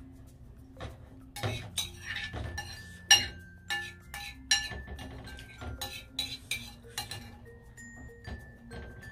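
Metal spoon clinking and scraping against a ceramic bowl while scooping rice: a quick run of sharp clinks, some with a brief ring, thinning out near the end. Soft background music plays underneath.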